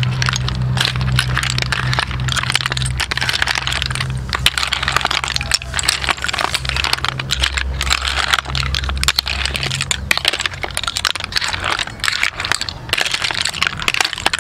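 River snail shells clattering and clicking against one another and the metal tray as they are tossed with tomatoes and chilies, a rapid uneven run of small clicks. A low steady hum sits underneath until about ten seconds in.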